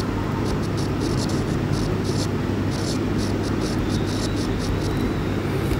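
Steady low hum and hiss of background noise, with short, irregular scratchy ticks of a stylus writing strokes on a tablet's glass screen.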